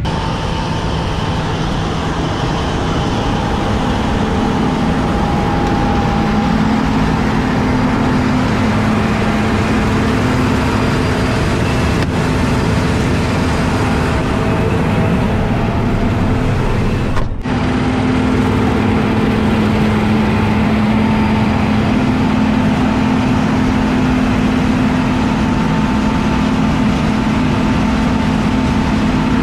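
Heavy diesel farm machinery running steadily during soybean harvest: a constant, loud engine drone with a steady hum, broken briefly about two-thirds of the way through.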